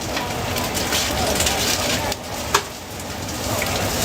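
Food sizzling steadily as it cooks at a street-food stall, with a sharp click about two and a half seconds in.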